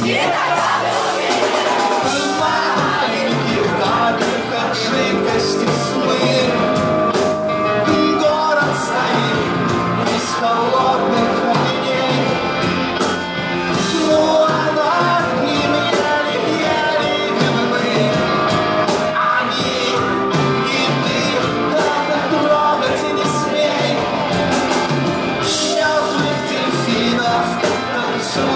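Live rock band playing: electric guitar, bass guitar and drums, with the lead singer singing over them.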